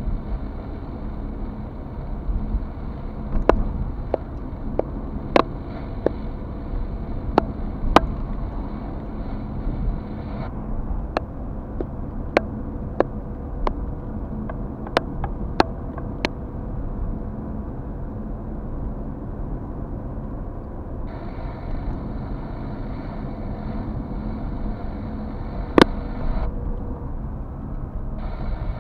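Steady road and engine noise inside a moving car's cabin on a wet road, with a dozen or so sharp clicks scattered through the first half and one more near the end.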